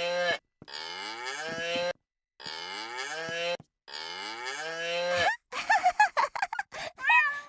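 Children's animal-sound toy playing a recorded cow's moo again and again as its key is pressed: three long moos in a row, each rising then falling. Near the end it breaks into a rapid run of short, clipped animal calls.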